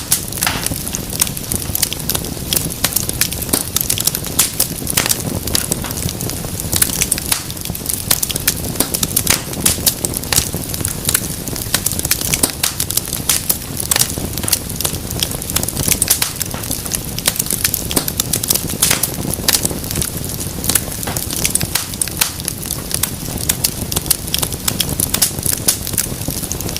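Wood fire crackling steadily, with dense irregular pops and snaps over a low flame rumble.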